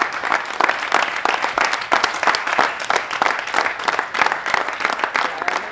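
Audience and cast applauding, many hands clapping steadily.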